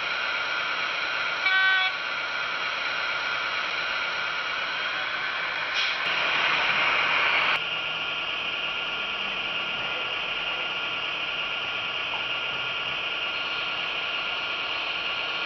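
Model diesel locomotive's DCC sound decoder playing a steady diesel engine sound through its small onboard speaker, with a short horn toot about a second and a half in. A louder rushing noise comes in about six seconds in and cuts off sharply under two seconds later.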